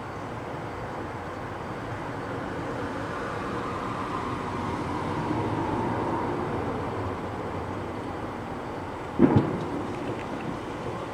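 A loud firework bang about nine seconds in, a double crack that echoes briefly, over a steady rumble that swells and fades.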